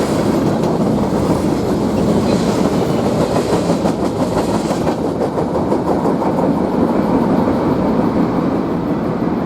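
Wisconsin and Southern freight train's cars rolling by, a steady loud rumble of steel wheels on rail with faint clicking over the rail joints.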